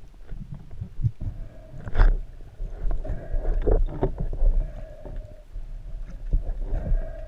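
Underwater sound heard through a speargun-mounted camera: a low rumble of water movement with scattered knocks and clicks, a loud knock about two seconds in, and a faint hum that comes and goes.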